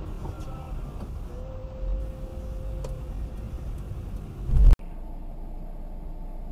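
Road and engine rumble heard inside a moving car through a dashcam's microphone. About four and a half seconds in there is a loud, deep thump that cuts off abruptly, followed by a steadier, quieter car-interior rumble.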